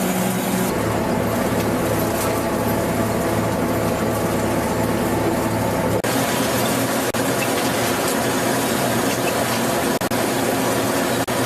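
Sanei EZOX MP-3000SP potato harvester running under load: a steady engine hum under a dense mechanical clatter, broken by a few abrupt brief dips where the sound cuts.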